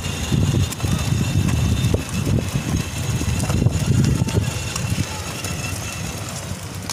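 Children's battery-powered ride-on toy car rolling over concrete paving, its hard plastic wheels giving an uneven low rumble that eases a little near the end.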